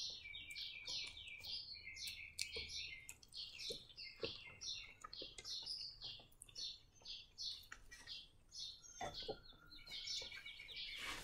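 A small bird chirping over and over in a quick, steady run of short high chirps, about three a second, with a few faint clicks.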